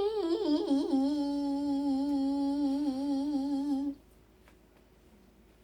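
A child's voice humming one long note. It wavers and slides down during the first second, then holds steady with a slight wobble before stopping about four seconds in.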